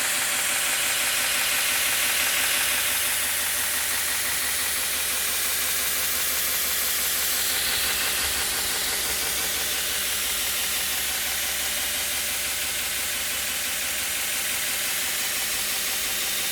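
Home-built 96 x 2 inch belt grinder running steadily, its 1 hp three-phase motor driven from a VFD: a constant hiss over a low hum.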